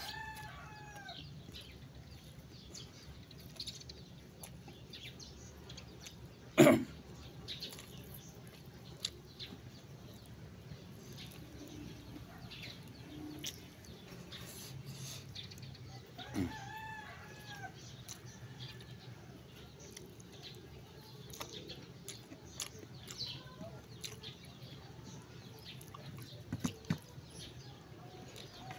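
A rooster crowing briefly twice, once at the start and again about sixteen seconds in, over a steady low background. A single sharp knock about seven seconds in is the loudest sound.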